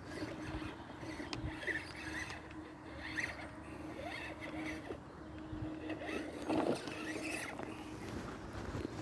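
Electric motor of a modified FTX Outback RC crawler running with a steady hum, cutting in and out in short spells, over rustling of the tires on rough ground.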